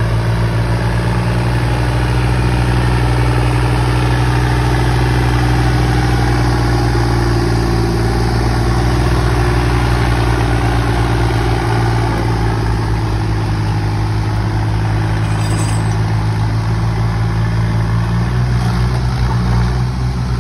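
Swaraj tractor's diesel engine running steadily at an even, low pitch, its note shifting slightly near the end.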